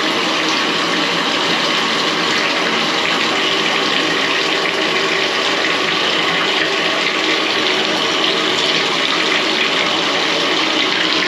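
Water running steadily from a bathtub tap into a tub whose drain is clogged and slow.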